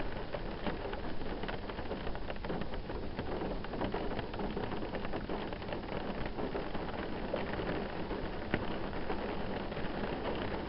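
Steady rain falling, with many separate drops pattering throughout.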